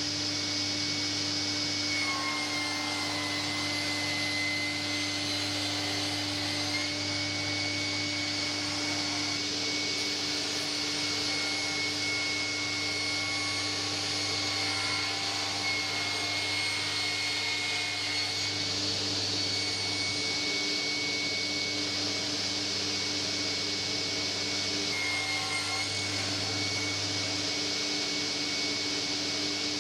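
Electric woodworking power tool running steadily at speed, a constant high whine over a low hum, the pitch sagging slightly about two seconds in and again near the end.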